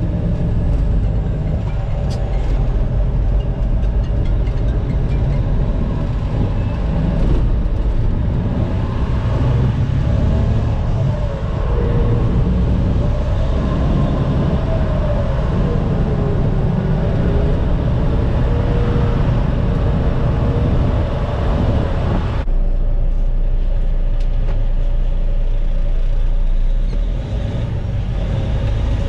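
Caterpillar C13 diesel engine of a Kenworth T800 dump truck heard from inside the cab while driving, a steady heavy rumble whose pitch rises and falls as the gears are changed. About three-quarters of the way through, the higher part of the noise drops away suddenly, leaving the low rumble.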